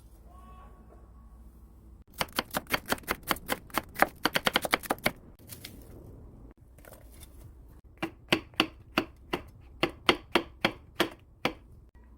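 Kitchen knife chopping food on a cutting board: a fast run of about six strokes a second lasting some three seconds, then, after a pause, a slower run of about three strokes a second.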